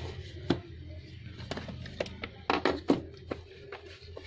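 Handling noise as smartphones are lifted out of their cardboard boxes on a wooden table: a run of light taps, clicks and knocks of phone against box and tabletop, busiest a little past the middle.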